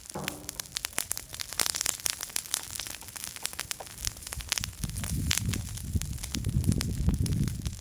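Small campfire crackling with irregular sharp pops and snaps, with a brief squeal right at the start and a low rumble building from about five seconds in.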